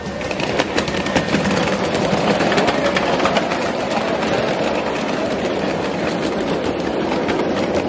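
Ridable miniature-railway freight train led by a scale Lackawanna GP7 locomotive passing close by: a steady mechanical running sound with rapid clicking and clattering of small steel wheels over rail joints and switch crossings. It grows louder over the first second or two as the train comes past.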